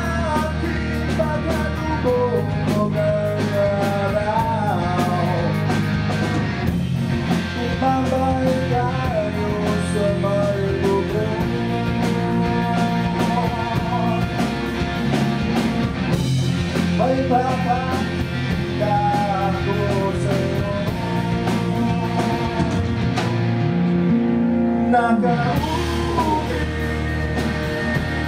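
A live rock band playing a song: a singer's voice over electric guitar, bass guitar and drums.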